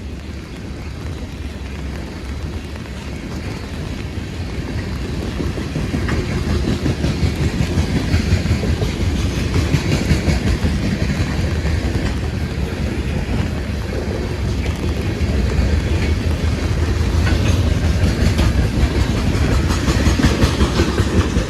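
CSX manifest freight train M635 rolling past, a steady rumble with the wheels clicking over the rail joints, growing gradually louder.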